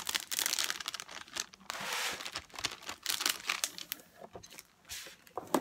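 Clear plastic cover film on a diamond painting canvas crinkling and crackling as a ruler is swept across it and hands press it flat to push out air bubbles. The crackling is dense for the first few seconds and thins out after about four seconds.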